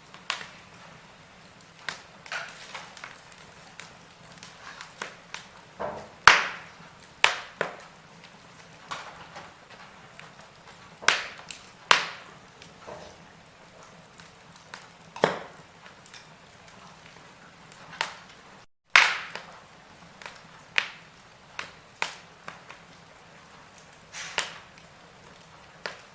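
Wood fire in a fireplace crackling, with irregular sharp pops of varying strength over a soft hiss, the loudest about six seconds in.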